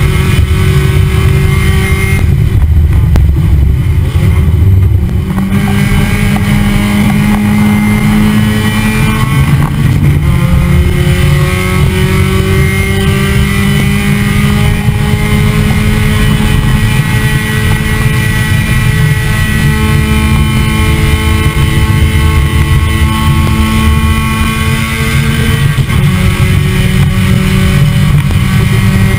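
Onboard sound of a Mazda Miata race car's four-cylinder engine running hard at high revs. Its pitch climbs slowly, drops briefly about ten seconds in, then climbs again.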